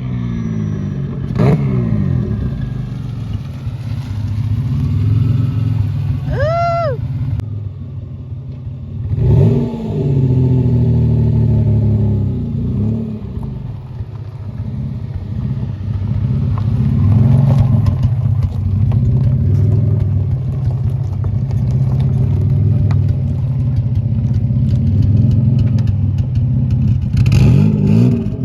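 Turbocharged Mazda MX6 engine on the move, revving up and dropping back several times. A brief high whistle rises and falls about six and a half seconds in.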